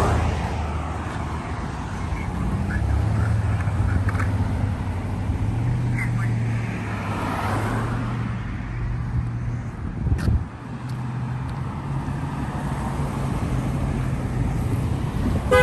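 Road traffic: car engines idling and creeping past at low speed in slow, backed-up traffic. A car horn sounds near the very end.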